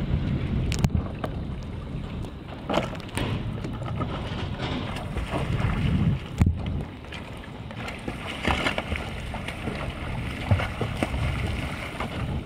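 Water splashing and sloshing as a person climbs out of the water back onto a swamped fishing kayak, with a few sharp knocks. Wind buffets the microphone throughout as a steady low rumble.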